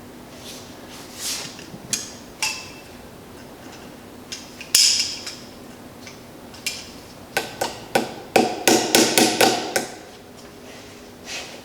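Sharp metallic taps and clicks of hand tools working a cotter pin into a tight-fitting pin and washers. A few scattered taps, then a quick run of about a dozen in a couple of seconds.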